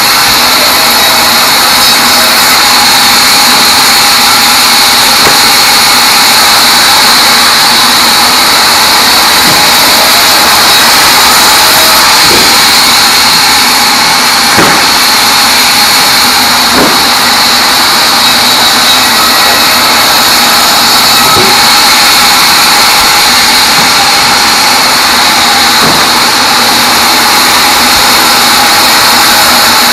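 Sawmill band saw running through a teak log: a loud, steady, hissing whine, with a few faint knocks along the way.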